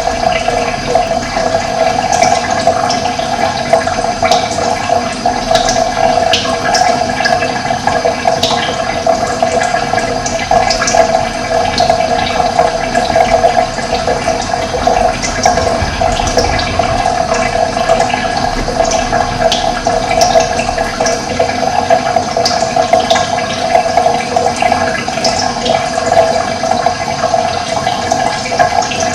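Running water flowing steadily, with brief high bird chirps scattered over it.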